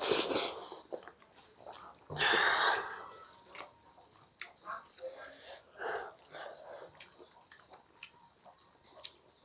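Close-up eating sounds: chewing and mouth noises, with fingers mixing rice on steel plates. Two louder noisy bursts come near the start and about two seconds in, followed by many small clicks and smacks.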